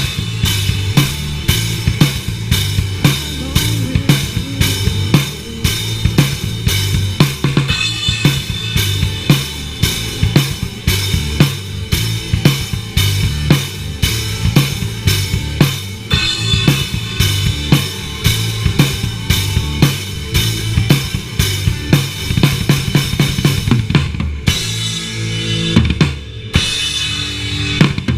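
A live band playing loud rock music, the drum kit foremost with kick, snare and cymbal hits in a steady beat over low bass notes. It is heard close up through a chest-mounted action camera's own microphone.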